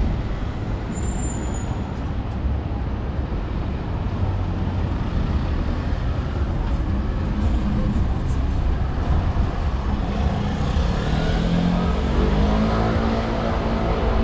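City street traffic: cars passing on the road with a steady low rumble, then a double-decker bus's diesel engine growing louder over the last few seconds as it draws up close alongside.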